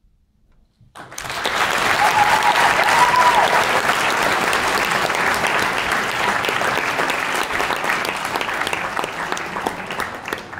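Audience applause breaks out suddenly about a second in, a dense steady clapping that tails off near the end.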